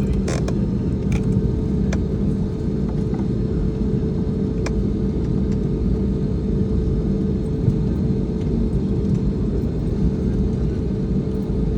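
Airliner cabin noise while taxiing after landing: a steady rumble with a constant hum from the engines at idle.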